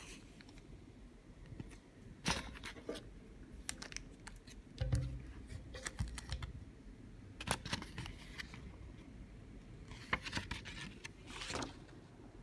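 Handling noise: a paper booklet rustling as it is held and moved, with scattered clicks and taps and a soft low thud about five seconds in.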